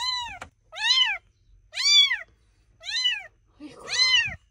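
A tiny kitten meowing: five high, arching cries, each rising then falling, about a second apart, the last as it is lifted by hand.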